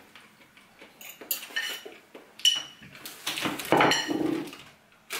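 Cutlery scraping and clinking against a dinner plate as a piece of salmon is served onto it, with a few sharp, briefly ringing clinks. The loudest clatter comes near the end, as the plate is set down on the table.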